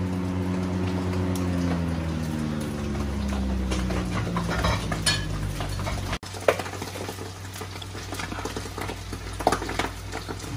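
Oil sizzling and bubbling in a wide pan of rice cooked with fish, with clinks and scrapes of a metal ladle against the pan. Over the first half a low droning hum slowly drops in pitch, then cuts off.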